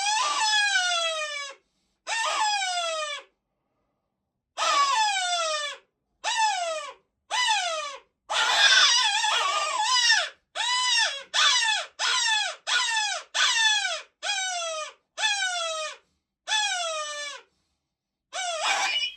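Electronic predator call playing animal distress cries: a run of high, whining yelps that each fall in pitch, repeated about once or twice a second with short gaps, and one longer, harsher cry near the middle.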